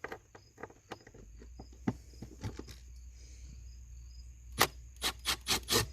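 Torx screw being worked out of the plastic air filter housing cover: a run of small clicks and ticks from the bit and screw against the plastic, with a few louder, sharper clicks near the end. A low steady hum sets in about a second in.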